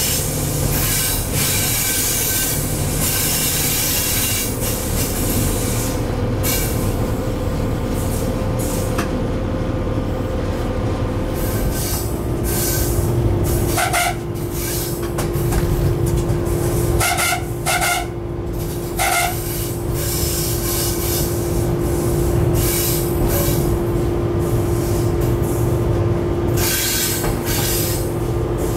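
Cab of a Siemens EuroSprinter class 120 electric locomotive hauling a freight train: steady running noise of wheels on rails with a steady whine that shifts lower about twelve seconds in. A few short pitched beeps sound around the middle.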